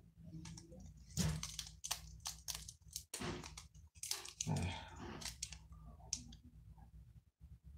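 Irregular clicks, taps and rustles of hands opening a cardboard Yu-Gi-Oh deck box and handling the cards close to the microphone.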